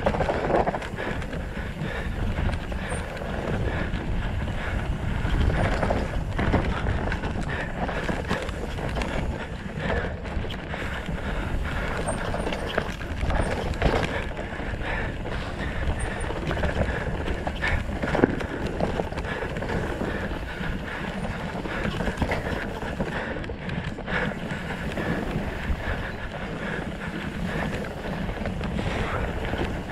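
Mountain bike descending a dirt forest trail at race speed: a steady rush of tyres on dirt and wind on the helmet-camera microphone, with frequent knocks and rattles from the bike over bumps.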